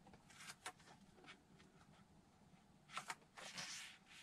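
Faint, short scratchy rustles of hands working a foam sheet along a steel ruler: a few small scrapes in the first second, then a louder cluster of scrapes about three seconds in.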